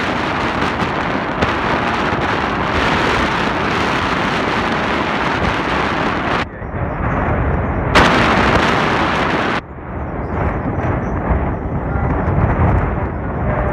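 Wind rushing over the microphone with the running noise of a passenger train at speed, heard from the side of a moving coach. The hiss cuts out suddenly about six and a half seconds in, comes back loud a moment later, and drops again about ten seconds in.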